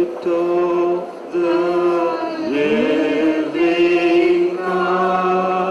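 Voices singing a slow worship chant in long, held notes, with a short gliding phrase about midway.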